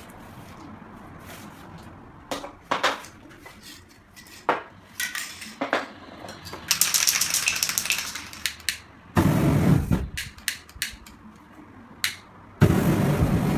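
Spray paint cans being handled: a series of sharp clicks and knocks, then a hiss of about two seconds from a spray can, then louder rustling and scraping handling noise.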